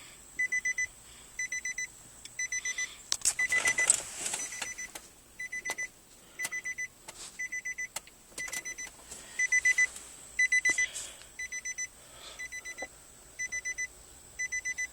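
A 2010 Nissan Altima's warning chime beeping in short groups of rapid high beeps, the groups repeating about once or twice a second without stopping.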